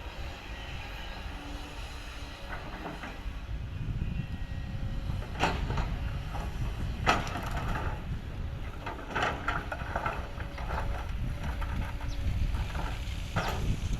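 Excavator engine running as a low rumble, with several sharp clanks a few seconds apart as the machine works rock.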